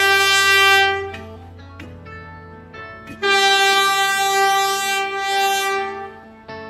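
Passenger train's horn sounding two steady blasts: a short one of about a second at the start, then a longer one of about three seconds from about three seconds in. Soft background music plays under and between them.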